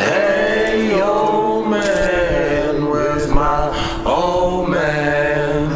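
Background music: a voice singing long, sliding notes in short phrases over a steady sustained backing.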